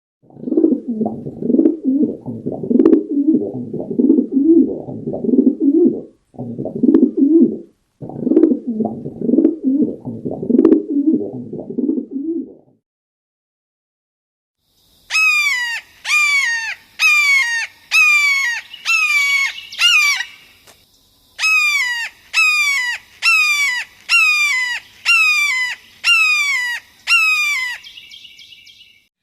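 Bird calls, two different birds one after the other. First comes a long run of low, rapid pulsing calls lasting about twelve seconds. After a short pause comes a series of loud, clear down-slurred whistled notes, repeated about once a second.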